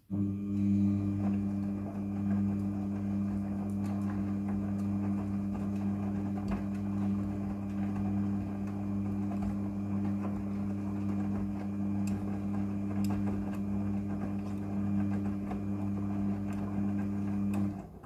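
Midea front-loading washing machine drum turning under its motor, with a steady hum and the wet clothes tumbling inside, scattered with small clicks. It starts abruptly and stops shortly before the end, as one agitation stroke of the wash cycle.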